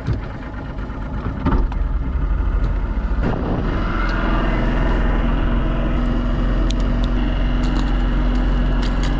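Boat motor running. It comes on after a knock about a second and a half in, rises briefly in pitch around four seconds in, then runs with a steady low hum.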